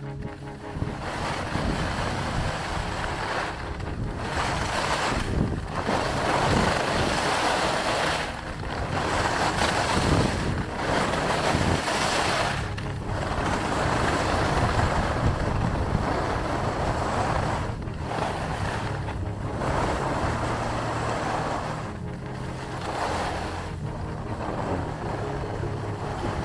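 Skis hissing and scraping over groomed snow on a downhill run, the noise swelling and dropping away every few seconds as the skier links turns, with wind on the microphone.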